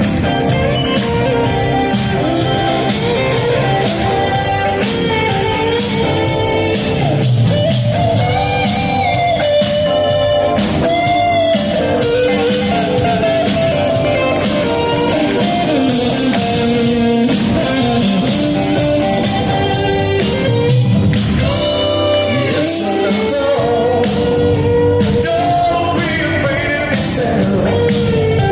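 Live rock band playing: singing over guitar and a steady drum beat, heard in a large hall.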